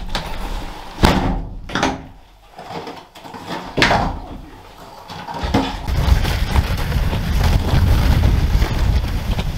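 Loud knocks and a slam of a pickup truck's tailgate and bed being shut after loading firewood, the sharpest about a second in and another near four seconds. From about halfway a steady low rumble takes over.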